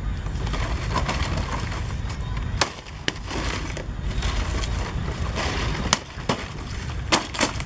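Palm fronds rustling and snapping as they are pulled and cut by hand, with about six sharp cracks spread through.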